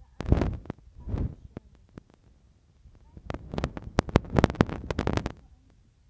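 Handling noise: two short rustles near the start, then a quick run of clicks and knocks in the second half.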